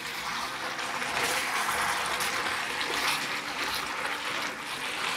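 Pork, onions and gochujang sauce sizzling steadily in a hot cast-iron pan while being stirred and tossed with wooden spatulas.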